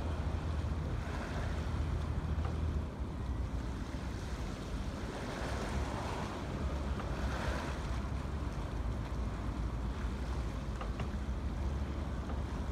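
Harbour water lapping and splashing against wharf pilings, swelling a few times, under a steady low rumble of wind on the microphone.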